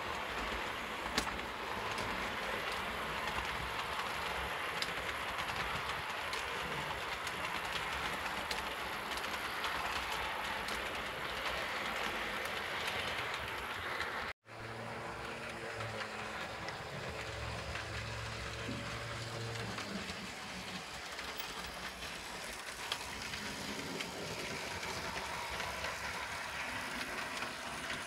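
H0-scale model trains running on the layout's track: a steady rolling rattle of small metal wheels on the rails. After a brief break partway through, a low electric-motor hum joins for a few seconds.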